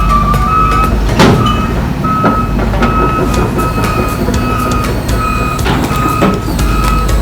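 Heavy-equipment backup alarm beeping at an even pace, roughly a beep every two-thirds of a second, over the low rumble of a diesel engine. A few sharp metallic knocks come through, the loudest about a second in.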